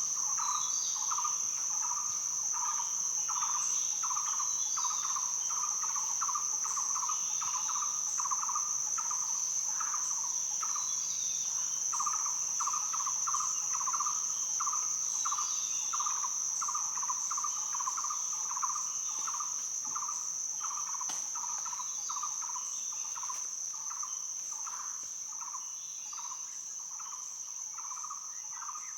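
Outdoor insect chorus: a continuous high-pitched trill from crickets or similar insects, over a lower rhythmic chirping about three times a second. Faint bird chirps come and go behind it.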